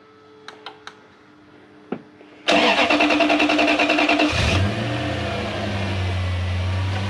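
A few light clicks, then the starter of a Lexus LS430's 3UZ-FE 4.3-litre V8 cranks for about two seconds before the engine catches and settles into a steady idle. This is its first start after the intake (ACIS) repair and reassembly.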